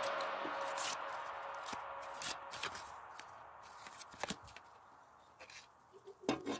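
Background music fading out, then a few faint clicks and taps from hands handling a cardboard template, with a short cluster of taps near the end as a metal pipe is picked up.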